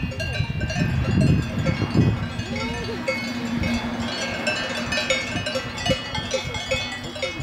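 Cowbells on a herd of grazing cows clanking irregularly, a jumble of short, bright overlapping tones. A low rumble sits under them in the first two seconds, and a steady low hum runs through the middle.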